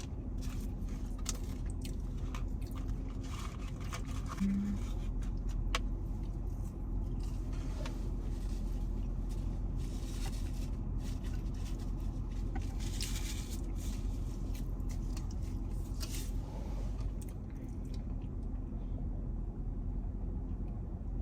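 Steady low rumble of a car interior with the engine idling, with scattered small clicks and rustles.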